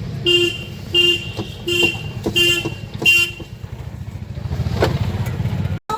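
A vehicle horn sounding five short, evenly spaced beeps, about one every 0.7 seconds, over a steady engine rumble.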